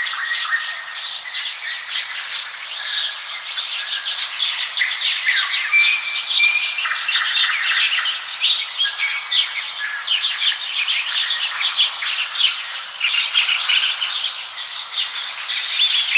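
A chorus of forest birds chirping and calling at once: many short, overlapping chirps with a few brief held whistled notes, going on without a break.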